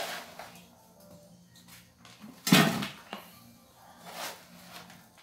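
Two knocks, a loud one about halfway through and a softer one about two seconds later, over faint background music.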